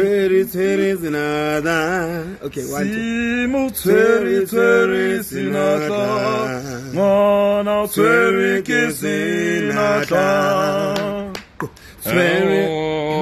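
Two men singing together without accompaniment, holding long wavering notes in phrases with short breaks, and a few sharp clicks between phrases.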